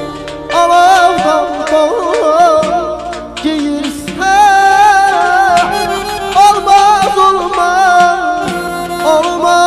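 Live Azerbaijani band music: an ornamented melodic line with wavering pitch over a steady accompaniment.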